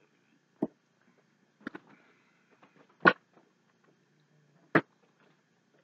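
Mouth and swallowing sounds of a person drinking soda from a plastic bottle and tasting it: four brief, separate sounds, the loudest about three seconds in.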